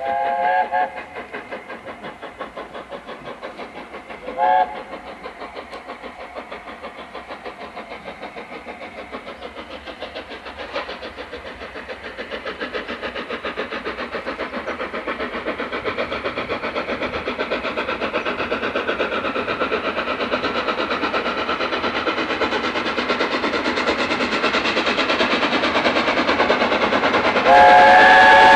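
LNER A4 Pacific steam locomotive pulling away with a train: its chime whistle sounds briefly twice at the start, then its exhaust beats grow steadily louder as it draws nearer, and the chime whistle sounds again, longer, near the end.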